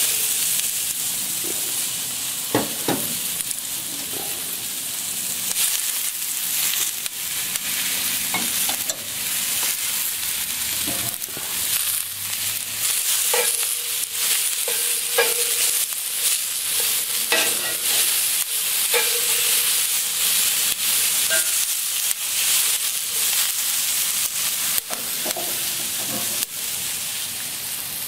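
Sliced onions and bell peppers sizzling in a hot cast-iron skillet on a gas grill. The sizzle starts suddenly as the onions hit the pan. Scattered clicks and scrapes come from tongs stirring against the iron.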